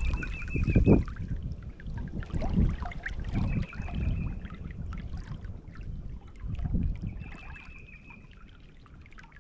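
Creek water splashing and trickling, with a few heavier sloshes. A bird repeats a short high trill three times.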